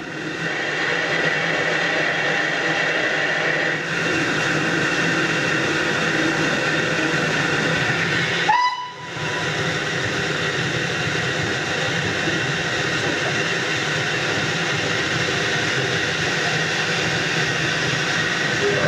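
Steam-hauled heritage train running, a steady continuous rumble and hiss, with a brief drop in level about halfway through.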